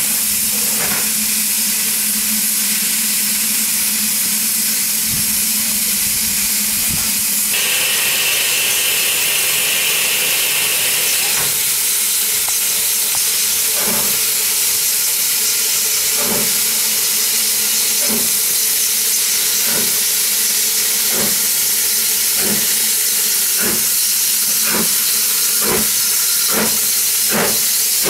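BR Standard Class 9F 2-10-0 steam locomotive No. 92203 starting away. Steam hisses steadily from its open cylinder drain cocks, and a high whistle sounds for about four seconds. Then the exhaust beats begin, slow at first and quickening as it gathers speed.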